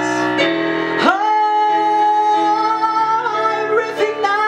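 Male singer belting a song over keyboard accompaniment: he slides up into a long held note with vibrato about a second in, then moves on through the melody.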